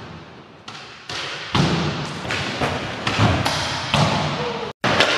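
Skateboard rolling on indoor park ramps, the wheels rumbling, with several thuds of the board on the ramp about a second apart. The sound cuts out briefly near the end.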